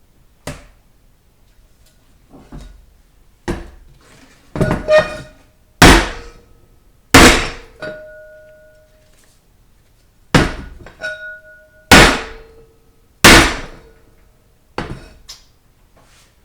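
Sharp metal knocks and clanks on the parts of a 4L60E automatic transmission, about fourteen strikes at irregular intervals. Two of them leave a short metallic ring.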